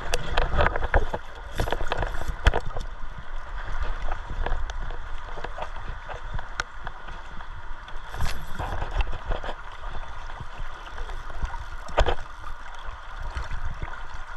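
River water flowing and sloshing close to the microphone, with a low rumble and scattered knocks and clicks, a stronger one about twelve seconds in.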